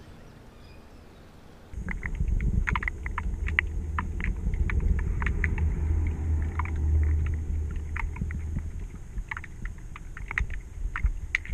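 Creek water heard through a submerged camera: after a quiet start it turns abruptly, about two seconds in, to a low muffled rumble with scattered sharp clicks and ticks.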